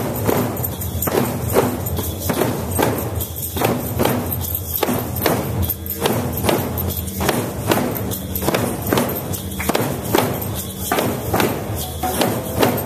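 Large group drum circle: a crowd striking handheld Remo Sound Shapes frame drums in unison, with djembes underneath, keeping a steady repeating beat.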